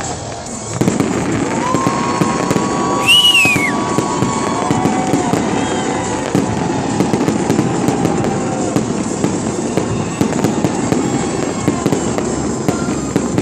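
Fireworks going off: a dense, continuous run of bangs and crackling starting about a second in, loudest about three seconds in, where a brief arching whistle sounds.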